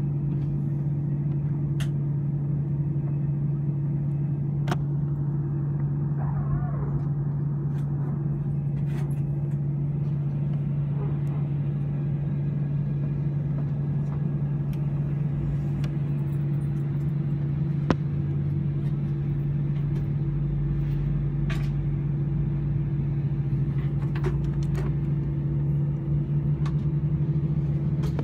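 Steady droning hum inside an Airbus A318 cabin, the air conditioning and aircraft systems running with the doors closed and slides armed before pushback. A deeper rumble swells in over the last several seconds, with a few faint clicks.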